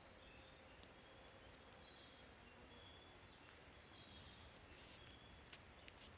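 Near silence: faint outdoor ambience with soft, short bird calls and a few light clicks.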